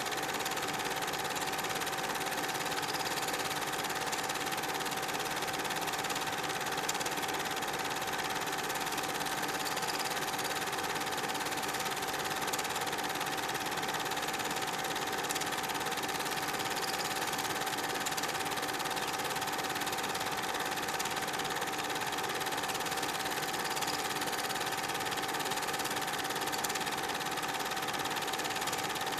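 Super 8 film projector running: a steady mechanical whir with a constant hum over hiss.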